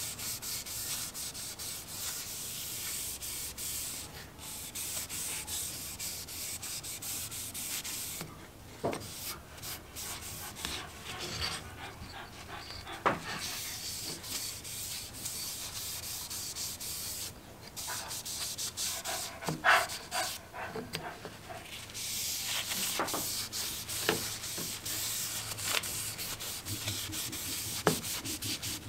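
Folded paper towel rubbed back and forth along the bare rosewood body of a spirit level, wiping on a wet finish: a steady scratchy rubbing hiss that stops and restarts several times as the hand shifts. A few light knocks come through, the loudest about a third of the way in and again about two-thirds in.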